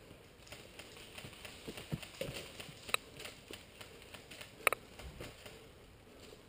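Footsteps and rustling on dry ground, with two sharp snaps, one about three seconds in and a louder one near five seconds.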